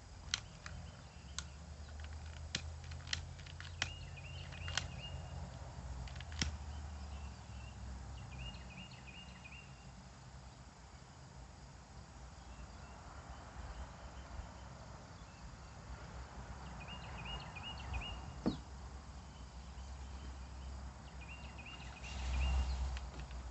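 Outdoor ambience with low wind rumble on the microphone, a bird repeating a short chirping phrase every few seconds, and scattered sharp clicks from handling small parts, most of them in the first six seconds.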